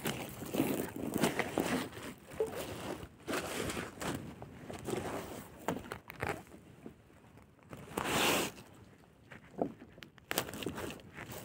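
Hands pulling a dead rohu fish out of a fine nylon gill net: irregular rustling of netting and plastic sheet with small knocks, and a louder rustle about eight seconds in.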